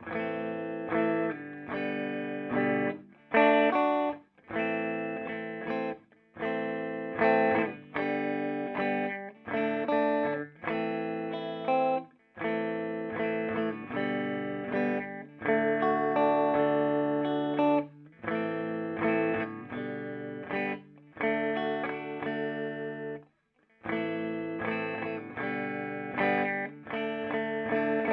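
Electric guitar played through a Peavey Bandit 112 combo, a TransTube solid-state amp with a 12-inch Blue Marvel speaker, on its clean channel. Chords are struck about once a second and left to ring, with a few short breaks.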